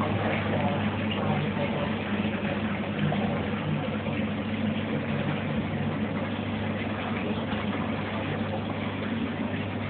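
Steady electric hum of a fish tank's filter pump, with the water it returns trickling and splashing into the tank.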